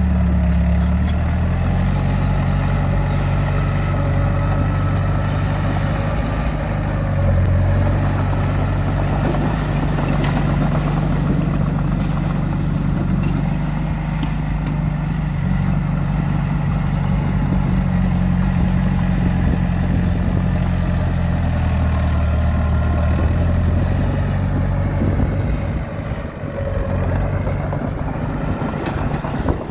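Diesel engine of a small D20 bulldozer running steadily, its pitch shifting a couple of times as the load changes, with a few brief metallic clicks.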